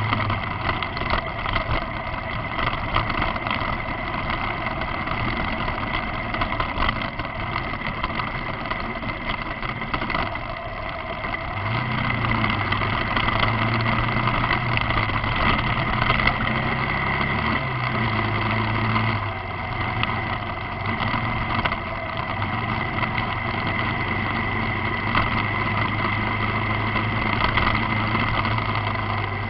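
Motorcycle engine running under way. Its note rises for several seconds midway, then settles back to a steady hum.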